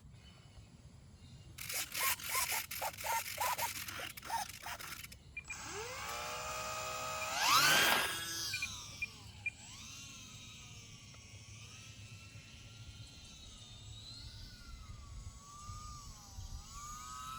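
Electric motor and propeller of an E-flite UMX Yak 54 180 micro RC plane: a few short blips, then a whine that rises in pitch, is loudest near eight seconds, and goes on wavering up and down as the throttle changes.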